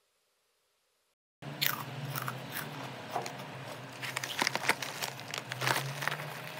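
Potato chips being bitten and chewed in crisp crunches, with rustling of the chip bag as a hand reaches into it. It starts about a second and a half in, after near silence.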